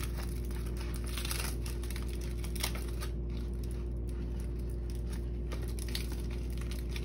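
Aluminium foil crinkling and rustling now and then as a gloved hand handles a foil boat of baked fish, with one light click about two and a half seconds in, over a steady low hum.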